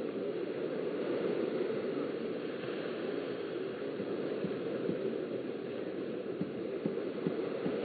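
Steady noisy wash of small waves breaking and lapping on a sandy beach, with a few soft thumps in the second half.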